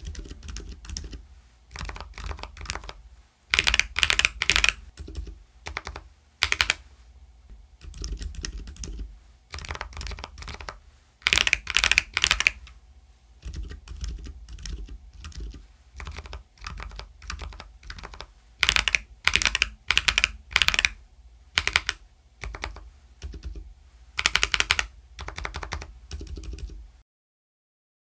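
Typing on a Keychron K4 Pro keyboard fitted with Outemu Lime (Lemon) silent tactile switches. The keystrokes come in uneven runs, with several louder, faster flurries, and stop abruptly about a second before the end.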